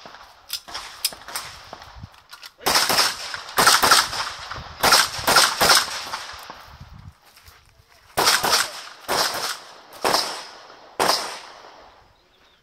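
9mm Glock 34 pistol firing a USPSA stage: shots in quick pairs and short strings with pauses between, each shot ringing with echo.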